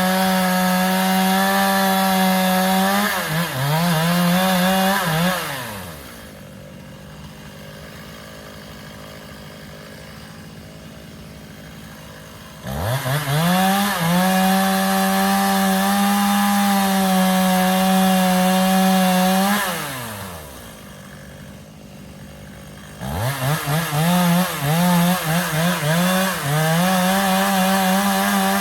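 Two-stroke chainsaw running at full throttle, its pitch wavering as it works. Twice it falls back to a much quieter idle, then revs up again.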